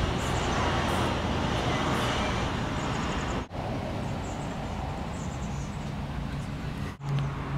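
Steady noise of road traffic going by. A brief break about halfway through and another near the end, after which a steady low hum comes in.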